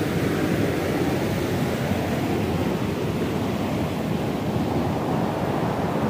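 Steady rushing noise of a waterfall and its stream.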